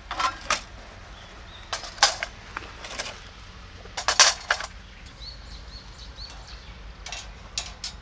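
Lava stone plates set down onto the steel bars of a HITAKI fire stand: a series of sharp knocks and clunks, the loudest about four seconds in. Near the end the thick steel grill grate clinks as it is laid onto the frame.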